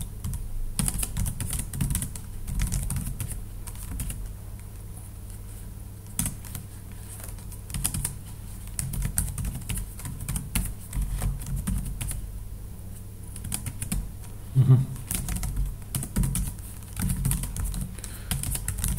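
Typing on a computer keyboard: irregular runs of keystrokes with short pauses between them, over a steady low hum.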